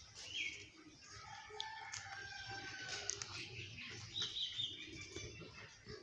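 A rooster crows once, a long call of about two seconds starting about a second in, while rose-ringed parakeets give short high squawks, one sharp one at the start and a brighter one around four seconds in.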